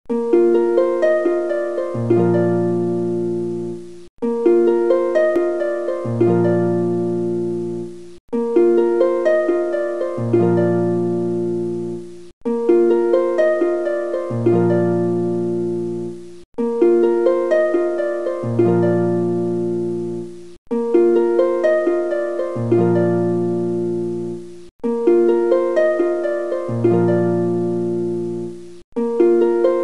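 Background music: a short plucked-string melody looped about every four seconds, each repeat cut off by a brief gap, with low bass notes joining halfway through each loop.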